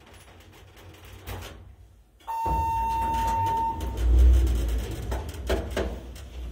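Thyssenkrupp elevator arriving at a floor: a single steady arrival tone sounds about two seconds in and holds for about a second and a half, as the car doors slide open with a low rumble that is loudest just after the tone ends.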